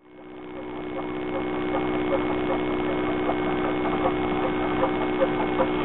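Old cine film projector running, added as a sound effect: a steady hum with a regular clicking of about two and a half clicks a second, fading in at the start.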